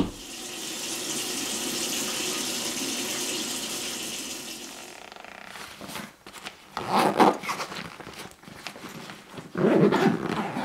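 Water running in a bathroom, a steady hiss that fades out about halfway through. Then irregular rustling and knocks as a fabric bag and its fittings are handled.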